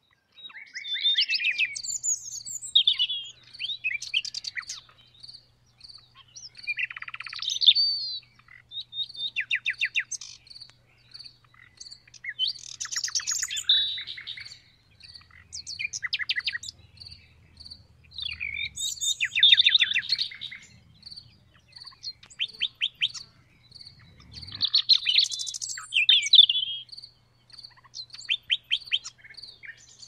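Common nightingale singing: varied phrases of whistled notes and rapid trills, separated by short pauses. Beneath it a steady high chirp from crickets repeats about twice a second.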